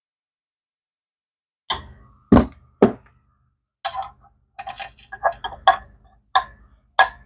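A string of about ten short knocks and clinks from tools and parts being handled during flywheel and clutch assembly on a motorcycle engine. The first starts about a second and a half in, and the two loudest come close together around two and a half seconds in.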